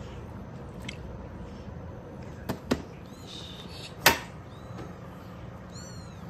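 A few short, high-pitched kitten squeaks over a steady low hum, broken by sharp clicks, the loudest about four seconds in.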